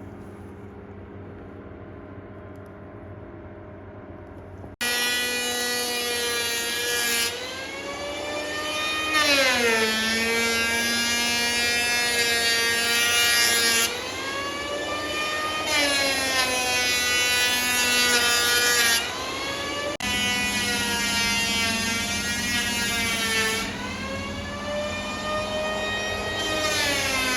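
A power tool's motor works through timber: a loud whine that sags in pitch as it bites and rises again as it frees, several times over. About five seconds in it cuts in sharply over a quieter steady hum.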